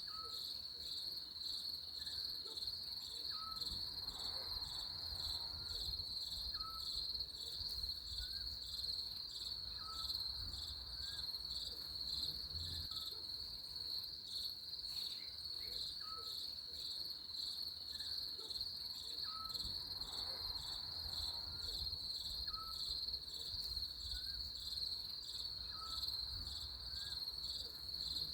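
Crickets chirping in a steady high trill that pulses rapidly and never stops, with short faint chirps repeating every second or two at a lower pitch.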